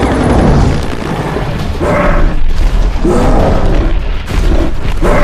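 Film action sound mix of a giant creature battling helicopters: heavy booms and a continuous deep rumble, with several louder surges and music underneath.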